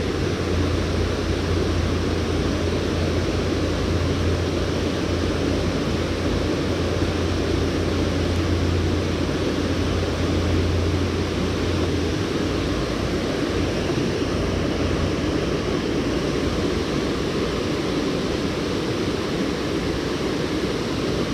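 Steady rushing of river water pouring over or through a dam, an even hiss-like rush, with a low hum underneath that stops about halfway through.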